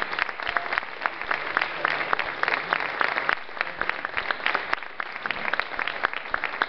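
Audience applauding: a dense, steady run of hand claps.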